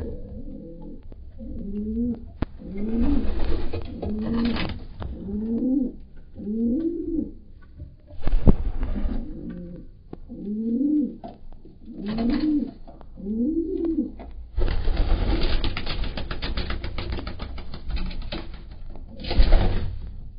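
Domestic pigeons cooing, one bird repeating a low coo that rises and falls, about once a second, nine or so times. Later comes a long stretch of wing flapping and scuffling, with a loud flap near the end.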